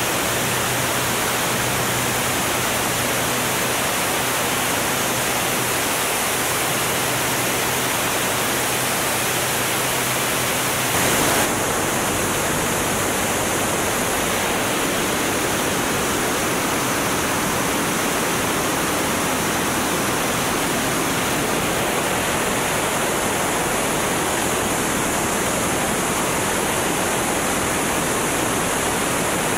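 Steady rush of slipstream wind on an onboard camera microphone of a Formula One class racing plane, with its engine's low drone underneath. The drone drops away about a third of the way in as speed comes off for landing, and a brief louder gust comes at the same moment.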